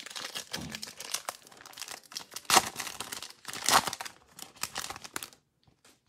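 Foil trading-card pack being torn open and crinkled by hand, with two louder rips about two and a half and three and a half seconds in.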